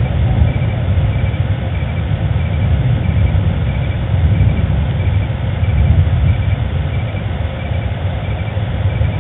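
Outdoor night ambience: a steady, fluttering low rumble with a faint high chirp of three quick pulses repeating about every two-thirds of a second.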